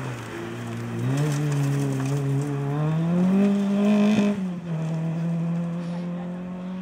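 Fiat Cinquecento rally car's engine pulling hard, its pitch rising steadily for about three seconds, then dropping suddenly at a gearchange about four seconds in and running on at a steady pitch.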